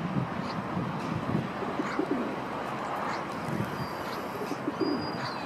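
Pigeons cooing in low, repeated calls. Small birds chirp in thin, high notes near the end.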